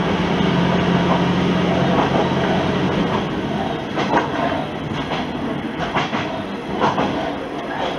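Diesel railcar running on jointed single track: the engine's low drone fades about three seconds in as it eases off, then the wheels click over rail joints several times.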